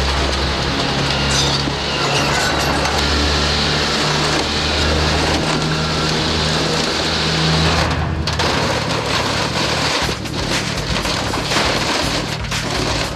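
Tracked excavator's diesel engine running hard while its hydraulic demolition shear crunches and tears the aluminium skin and frame of an airliner fuselage, a dense grinding of crumpling metal. About eight seconds in, the steady engine hum gives way to sharper cracks and clatter as pieces rip loose.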